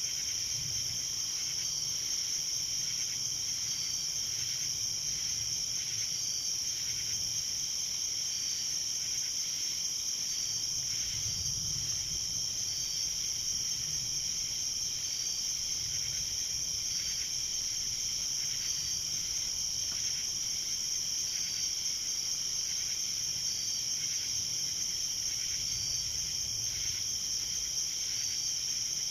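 Night insect chorus: crickets trilling in a steady high drone that does not let up, with a short repeated note about every two seconds and a faint low rumble underneath.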